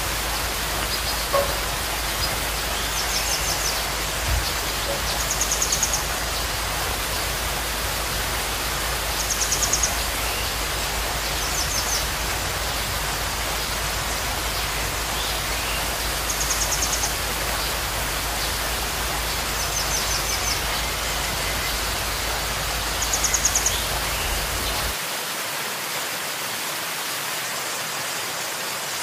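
Steady rush of a mountain river tumbling over small waterfalls, with short high chirping trills every few seconds and a soft knock about four seconds in.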